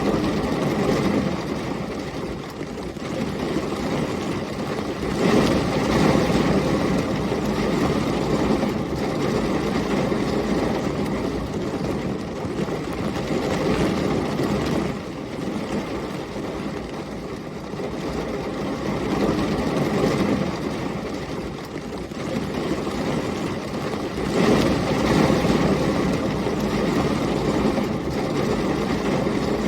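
Heavy rain with storm wind, a dense steady hiss and rumble, swelling into louder low rumbles about five seconds in and again around twenty-five seconds.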